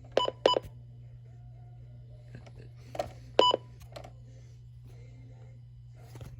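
Two pairs of short electronic beeps, the pairs about three seconds apart, over a steady low electrical hum.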